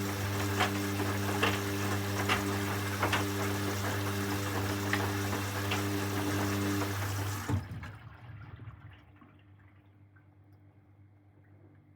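Hoover washing machine taking in water for its final rinse: a steady electric hum over rushing water, with light ticks every second or so. About seven and a half seconds in it stops suddenly with a click, leaving only a faint trickle.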